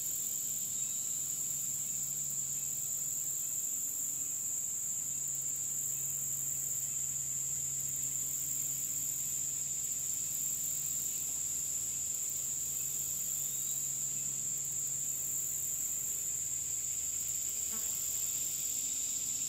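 Insects singing in a steady, high-pitched chorus: one unbroken shrill tone, with a fainter, higher buzz above it that keeps starting and stopping. A faint low hum runs underneath.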